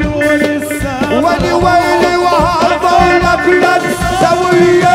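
Live Arabic wedding band music: an ornamented melody line, with the wavering, gliding notes of Middle Eastern music, over a steady hand-drum and drum-kit beat.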